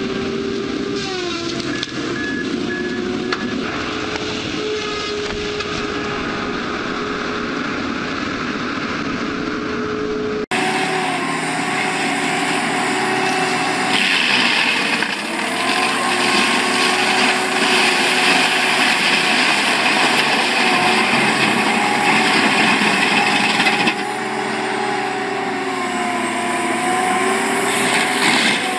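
Heavy diesel forestry machinery working under load: first a wheeled feller buncher running as its head grips and cuts a tree. After an abrupt cut about ten seconds in, a tracked forestry mulcher runs louder as its drum head grinds into a tree, the engine pitch rising and dipping with the load.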